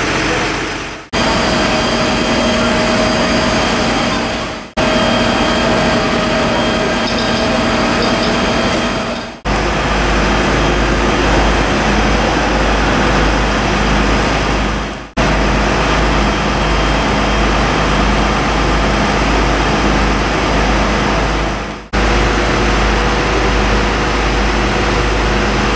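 Engines of parked fire engines running steadily amid street noise, in a run of short clips that each fade out and cut to the next every four to seven seconds. A deep steady rumble underlies the later clips.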